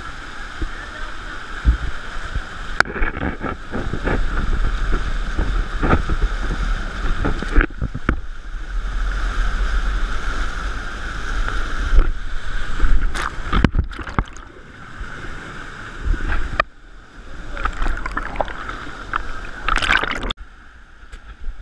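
Running canyon stream water with many sharp knocks and a low rumble that comes and goes; the sound drops off suddenly near the end.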